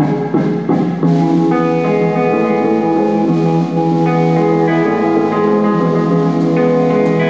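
Live rock band playing, with electric guitar chords ringing out in long, sustained notes over the band. A few sharp drum strikes land in the first second.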